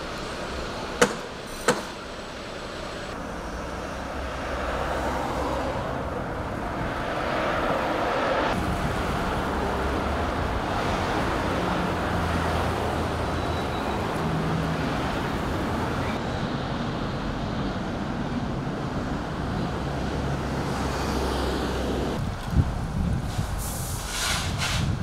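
Road traffic and vehicle engines running, a steady rumble that swells and fades in the middle. Two sharp knocks come about a second in, and another near the end.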